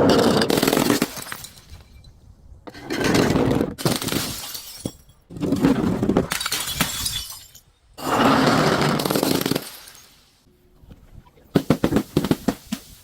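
Glass breaking and crunching under crushing, in four bursts of about a second each, roughly every two and a half seconds. Near the end comes a quick run of sharp cracks.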